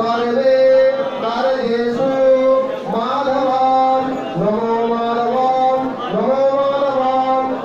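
A man chanting Hindu mantras into a hand-held microphone, in long held notes, each phrase opening with a rising slide in pitch.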